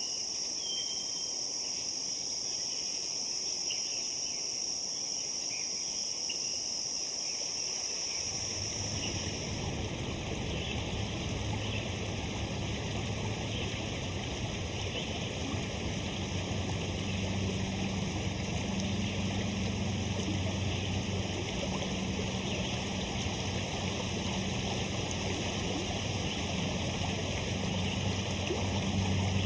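Insects trilling steadily in high, even tones; about eight seconds in, this gives way to a stream of water rushing, with a low steady hum beneath it.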